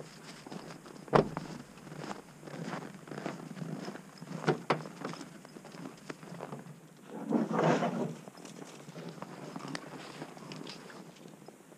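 Footsteps crunching on packed snow beside a pickup truck, with a thump as a rear door is shut about a second in, clunks as the tailgate is opened, and a longer scraping rustle past the middle as a large pack is pulled out of the truck bed.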